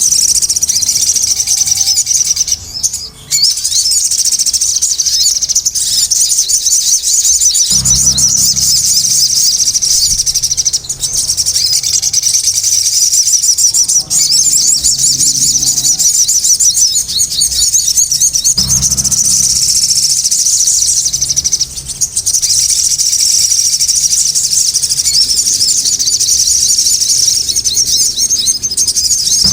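Sogon songbird singing loudly without pause, a dense, fast run of high chirps and trills, with a low hum coming and going underneath.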